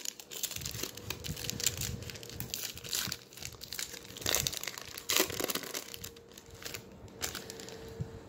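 Foil wrapper of a hockey-card pack crinkling as it is torn open by hand; the crinkling dies down after about six seconds.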